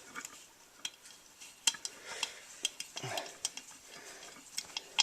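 Light metallic clicks and clinks of small hand tools and parts being handled, scattered irregularly.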